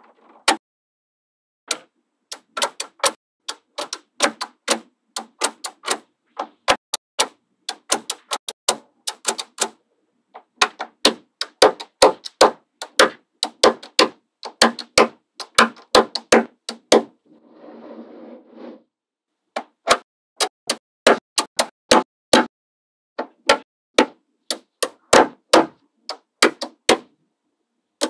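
Small neodymium magnetic balls clicking sharply as strips of them are snapped down into place, dozens of separate clicks in quick irregular runs. About two-thirds of the way through there is a second or so of softer rustling as the balls shift against each other.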